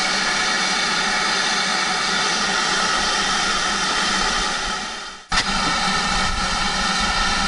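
GWR Manor class 4-6-0 steam locomotive 7812 Earlstoke Manor standing with its safety valves blowing off: a loud, steady hiss of escaping steam. About five seconds in, the hiss fades briefly and cuts straight back in with a click.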